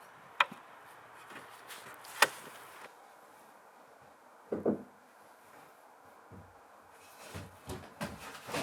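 Scattered knocks and taps of wood being handled: two sharp clicks in the first few seconds, a duller thud about halfway, then a quick run of lighter knocks near the end.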